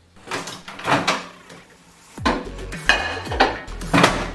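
Kitchenware clattering: a run of sharp knocks and rattles starting suddenly, with heavier thumps from about halfway through.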